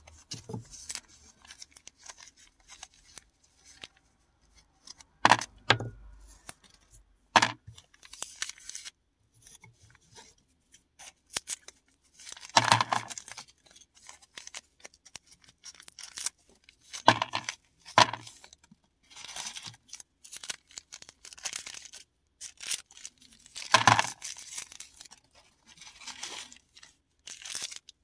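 Paradichlorobenzene mothball tablets and their plastic packaging being handled and torn open by hand: irregular bursts of tearing and crinkling, with a few sharp clicks.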